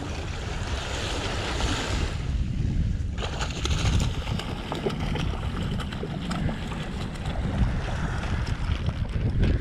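Wind buffeting the microphone in a gusty low rumble, with small waves washing on the sand; the wash is stronger for the first three seconds, then drops off.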